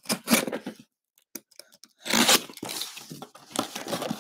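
Taped cardboard box being torn open by hand. There is a short burst of tearing at the start, a few small clicks, and then a longer spell of tearing and rustling from about two seconds in.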